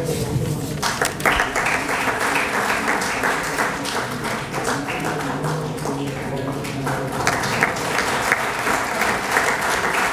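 Audience applauding, starting about a second in, with voices talking underneath.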